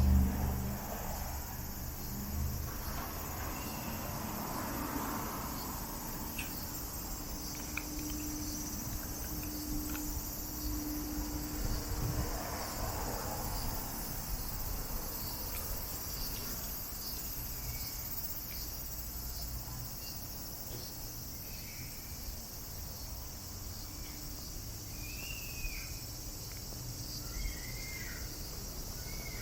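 Cicadas droning steadily in a high, even hiss, over a low city rumble. A few short chirps come near the end.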